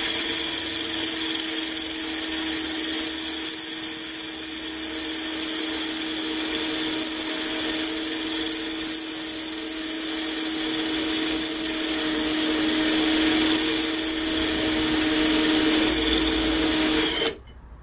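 Electric drill running steadily with a diamond tile-cutting bit grinding into a thick glass bottle: an even motor whine with a high gritty scraping on top. It stops suddenly near the end.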